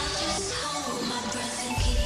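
Electronic dance music with synth notes; the heavy bass drops out about half a second in and comes back near the end.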